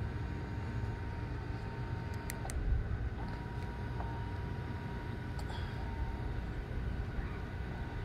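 Small electric motor of a remote-controlled rotating transducer mount whining steadily as it turns the mount through a toothed belt. It cuts out about two and a half seconds in, then starts again less than a second later, over a low steady rumble.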